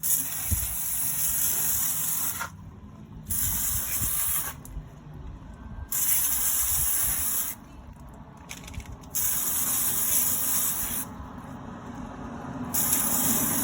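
Spraying onto a motorcycle chain in five separate bursts of high hiss, each lasting one to two and a half seconds, over a low steady hum.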